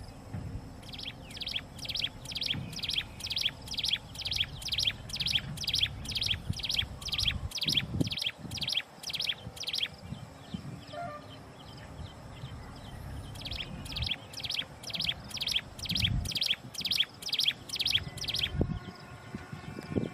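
A bird calling a long, even series of sharp repeated notes, about two or three a second, stopping for a few seconds near the middle and then starting again. A low rumble runs underneath.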